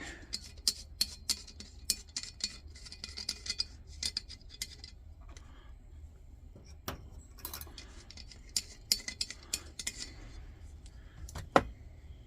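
Small metal clicks and clinks as a Coleman lantern's filler cap is handled and its cap gasket checked, with one sharp click near the end.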